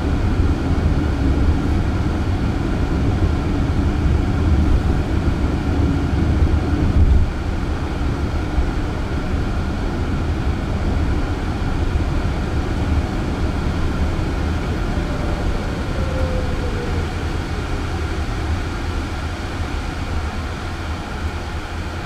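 Steady road and tyre rumble inside the cabin of a moving Jaguar I-Pace electric car, with no engine note. The rumble eases a little about seven seconds in.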